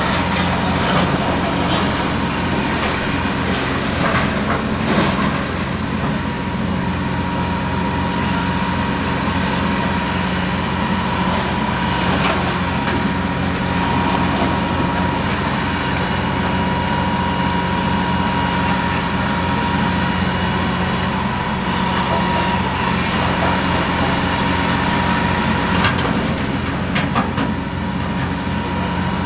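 Diesel engines of demolition machinery, excavators and a skid-steer loader, running steadily, with a steady high whine on top. Crashes and clatter of falling masonry and debris break in several times.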